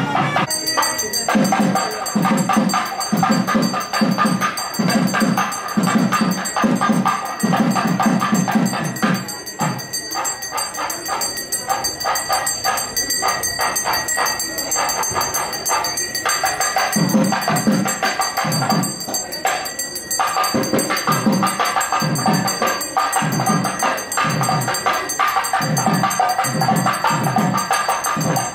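Music with a steady drum beat and percussion; the beat drops out for several seconds in the middle and then comes back.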